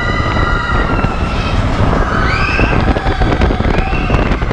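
Roller coaster train rumbling and clattering along its track, with wind on the microphone. A few short high squeals rise and fall over it around the middle.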